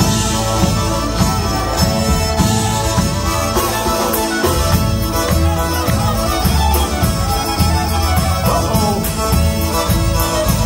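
Polka band playing a Góral polka live: fiddle and accordion over bass guitar and drum kit, with a steady polka beat.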